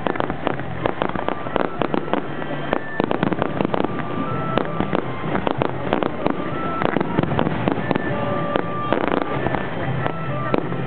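Fireworks display: a dense, irregular run of bangs and crackles, with short steady whistling tones here and there.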